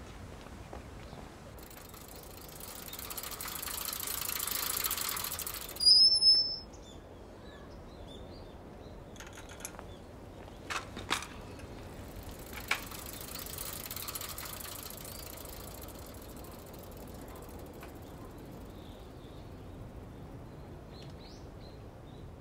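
Bicycle being handled on a quiet street: a short, loud, high squeal about six seconds in, then a few sharp mechanical clicks near the middle, over a steady faint outdoor hiss that swells for a few seconds early on.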